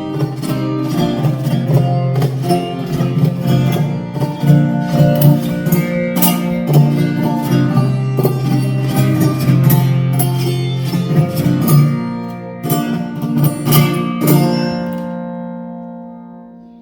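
Acoustic guitar strumming chords in the instrumental outro of the song, in the key of A; near the end the last chord is left ringing and fades away.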